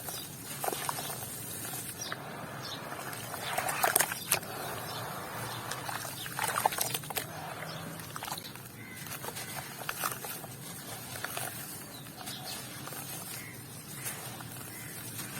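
White cement with grains being crushed and crumbled, giving irregular crunchy crackles with louder crunches about four and six seconds in.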